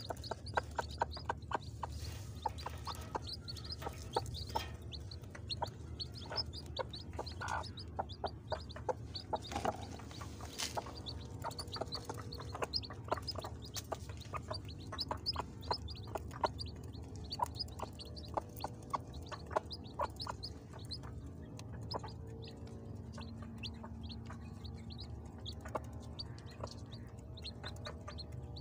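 Hen clucking softly and pecking at the dusty ground as she picks out grain for her chicks, with the chicks peeping in short high calls throughout.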